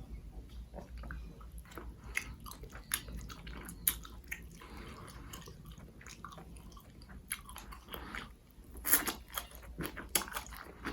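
Close-miked chewing and biting of spicy Korean noodles, with irregular wet mouth clicks and smacks and a couple of louder, longer mouth sounds near the end.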